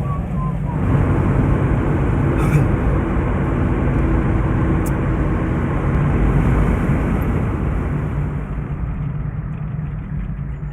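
Steady engine and road noise of a moving vehicle, with the last few short falling notes of a man's whistled tune trailing off in the first second. The running noise eases slightly near the end.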